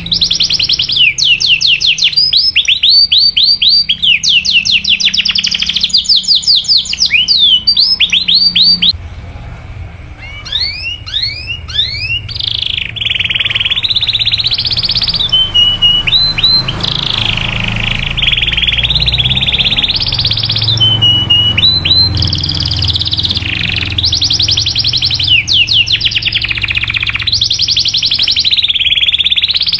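Domestic canary singing fast trills of rapidly repeated chirping notes, the "cuit cuit" calling song used to prompt other canaries to sing. The song drops away briefly about nine seconds in, then starts again with rising chirps and runs on in long trills.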